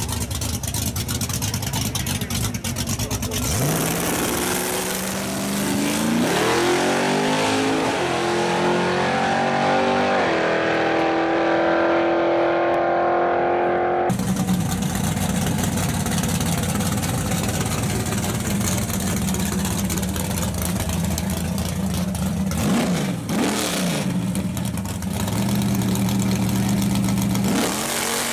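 Drag-racing car engine accelerating hard down the strip from about three seconds in, its pitch climbing in stages with each upshift and then holding high. About halfway through the sound changes abruptly to a steady low engine rumble, with a brief rev that falls and rises again a few seconds from the end.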